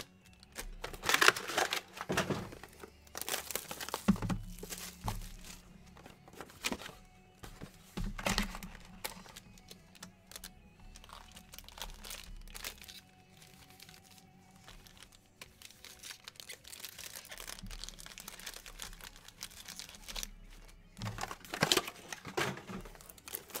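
Plastic wrapping crinkling and tearing as a trading card box is handled and unwrapped, in several short bursts, loudest near the start and again near the end. Music plays faintly underneath.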